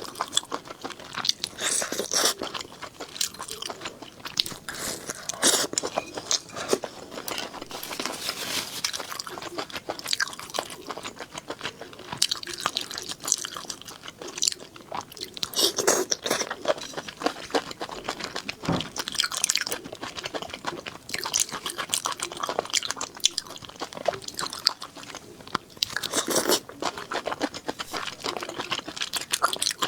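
Close-miked eating: a person biting and chewing food with many quick, irregular crunches and wet mouth sounds.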